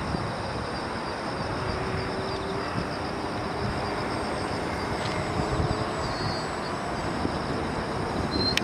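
Electric model biplane's brushless motor and propeller running in flight, a thin whine under a steady rushing noise.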